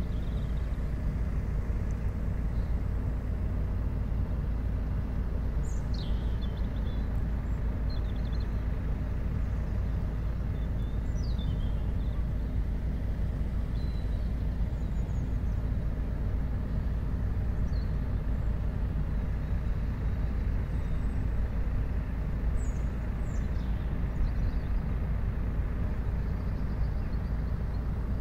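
Steady low background rumble of a city riverside at night, even and unchanging, with a few faint, short, high falling chirps now and then.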